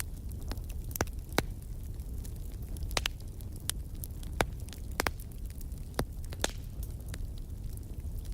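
Wood fire burning in a fireplace: a steady low rumble of flames with irregular sharp pops and crackles of burning logs, a handful of louder snaps among them.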